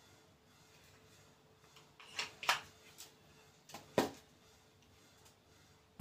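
A Cold Steel fixed-blade neck knife slid into its hard plastic sheath and set down on a tabletop: two pairs of short clicks and knocks, one about two and a half seconds in and one near four seconds.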